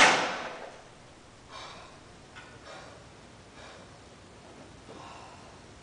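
Loaded barbell set down on a power rack's steel hooks, the clang dying away over the first moment, then the lifter's breathing after a bench-press set: a handful of faint breaths about a second apart.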